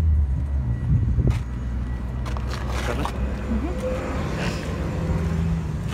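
Low rumble of wind buffeting the phone's microphone, with a few handling clicks.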